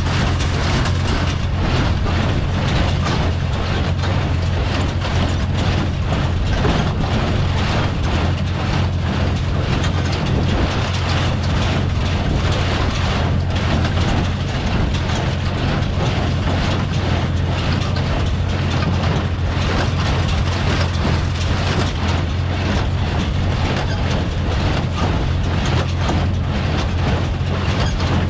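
Farmall M tractor engine running steadily as it drives a New Holland Hayliner 269 square baler, with continuous clattering and knocking from the baler's moving parts.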